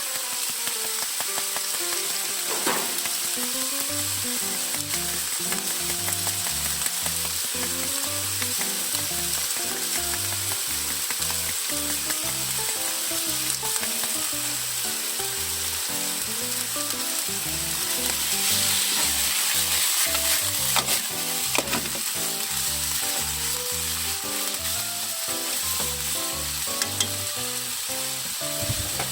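Chicken breast frying in sesame oil in a frying pan: a steady sizzle, with a few scrapes and knocks as it is stirred.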